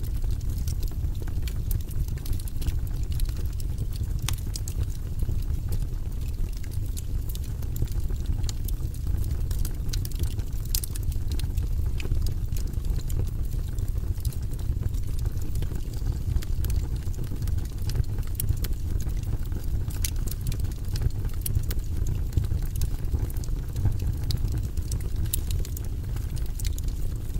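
Wood fire burning in a fireplace: a steady low rumble of the flames with scattered crackles and pops from the burning logs.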